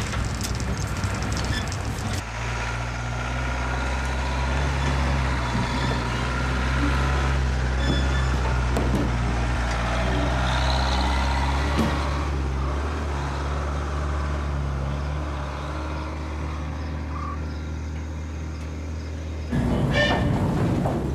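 Coach engine running steadily on the road: a low, even drone with road noise over it. The sound changes abruptly about two seconds in and again near the end.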